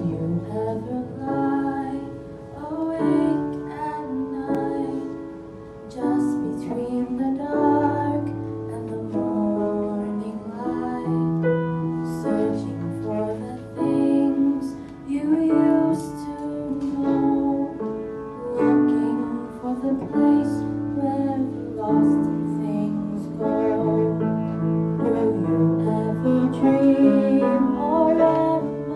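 A young female voice singing into a handheld microphone, accompanied by a grand piano.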